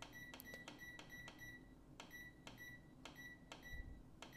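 Faint beeps from the menu button of a Panasonic SD-ZP2000 bread maker, pressed over and over to step through the program numbers. Each press gives a click and a short, high, single-tone beep, about three to four a second, with a brief pause about halfway through.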